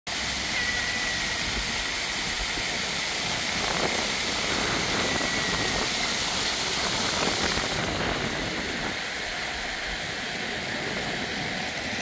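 Dozens of small fountain jets splashing into a shallow pool, a steady rush of falling water. The hiss turns duller about eight seconds in.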